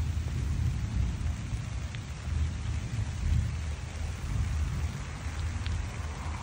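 Rain falling steadily on garden foliage, with a low rumble underneath and a few distinct single drips.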